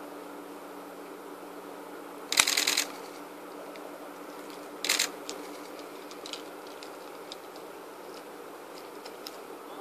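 Two short bursts of rapid camera shutter clicks, about two and a half seconds apart, over a steady low hum, with faint scattered ticks afterwards.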